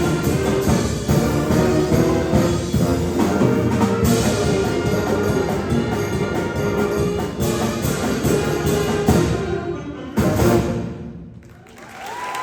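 High school concert band playing, with brass and percussion prominent, ending on a loud final chord about ten and a half seconds in that dies away. Audience applause starts just before the end.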